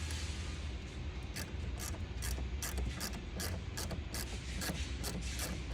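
Small mechanical clicks and ticks, a few a second, from hand work on a UTV exterior door handle and its latch mechanism, over a steady low hum.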